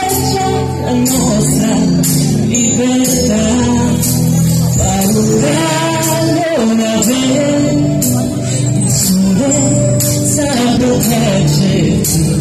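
A singer's voice over band music with a steady beat, the high percussion hits coming about twice a second.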